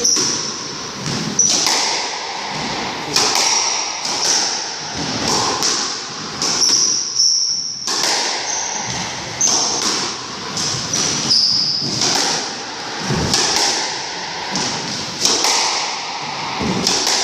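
A squash rally: the rubber ball cracking off rackets and smacking the court walls in sharp knocks at irregular intervals, with rubber-soled shoes giving short high squeaks on the wooden floor.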